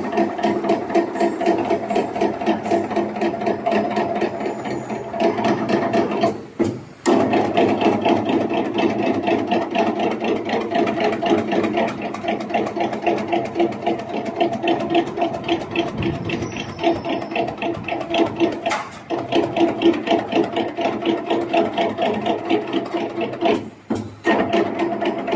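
CNC channel letter bending machine running: a steady motor hum under rapid, even mechanical clicking, broken off briefly twice, about six seconds in and near the end.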